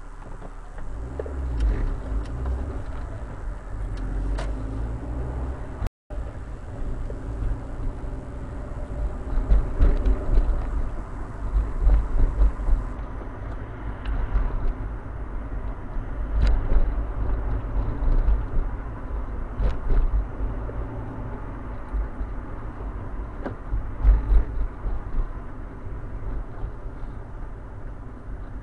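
Rover 45's engine and road noise heard from inside the cabin: a low rumble that picks up about a second in and rises and falls with the driving, with a few faint ticks. The sound cuts out for a moment about six seconds in.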